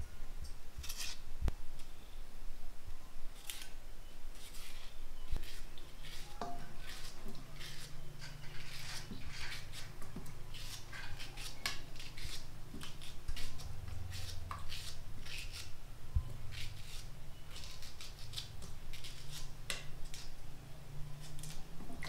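Kitchen knife cutting green bananas by hand: an irregular run of short, sharp scraping strokes.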